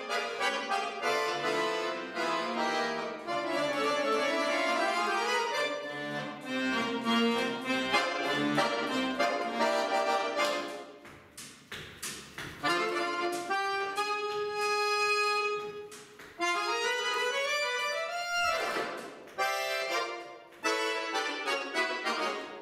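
Piano accordion playing a solo concert piece: fast, dense passages, then a quieter stretch about halfway with a long held chord, a rising run and a sudden loud chord, before fast notes resume near the end.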